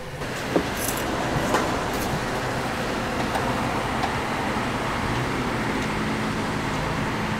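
Petrol running from a forecourt pump nozzle into a car's fuel filler: a steady rushing hiss with a few light clicks in the first two seconds, and a low steady hum joining in later on.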